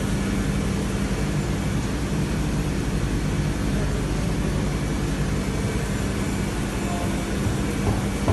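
Spinner U5-620 CNC machining centre running with a steady low hum and even whirring noise.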